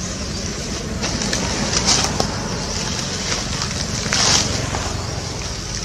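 Wind rumbling on the microphone, under a steady high hiss, with a few brief rustles of leaves and twigs about two and four seconds in.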